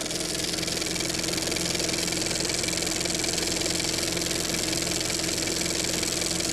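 An engine idling steadily at an even pitch.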